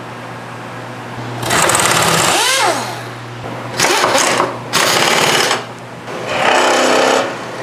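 Metal-cutting machine tool taking a heavy cut on a steel vise jaw: a steady motor hum under four loud grinding bursts of about a second each, the last with a whining tone.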